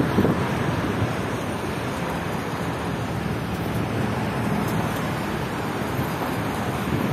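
Wind on the microphone, a steady rushing noise, over a background of city traffic.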